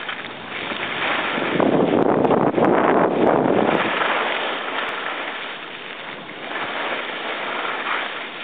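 Wind rushing over the microphone of a camera carried by a skier moving down a groomed slope. It swells and eases, and is loudest a couple of seconds in.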